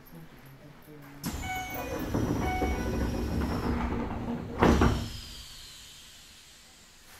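Keisei 3000-series train's passenger doors working at a station stop: a sudden rush of door-engine noise about a second in with a falling high whine and a short chime, then a heavy thud as the doors reach the end of their travel about four and a half seconds in, followed by a fading hiss.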